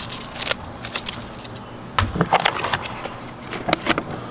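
Paper backing and transfer tape of a vinyl decal crackling and crinkling as the sheet is lifted and handled against the wall, in three short spells, with a soft bump about two seconds in.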